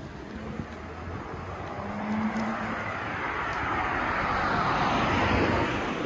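A car passing close by on the street: engine and tyre noise swelling steadily to a peak near the end, then falling away.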